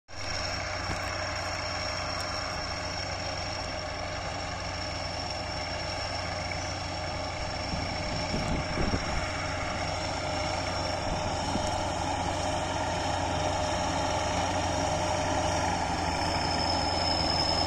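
Kirovets K-700 tractor's diesel engine running steadily under load while pulling a plough, with a thin high whine over the engine note. It grows louder towards the end as the tractor draws nearer.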